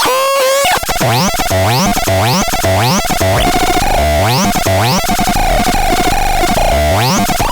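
ASTA PTS 61 playing synthesized electronic sound effects: rapid pitch sweeps that repeat about twice a second over a held mid-pitched tone.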